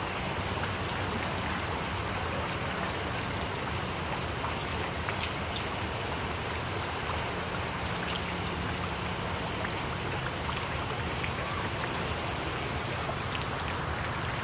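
Rain falling steadily onto flooded ground and standing water, with scattered sharp taps of individual drops.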